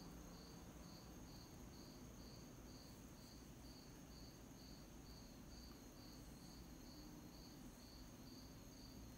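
Near silence, with a faint cricket chirping at an even pace, about two chirps a second, over a faint steady high whine.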